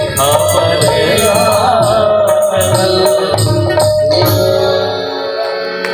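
Live Bhojpuri folk song: a male voice sings over harmonium, dholak and a jingling tambourine. About four seconds in, the singing and drumming stop, leaving steady held instrumental notes.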